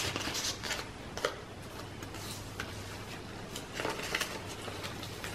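Paper pages and card tags of a handmade junk journal being handled and turned: soft rustling with a few light taps and clicks, over a faint steady low hum.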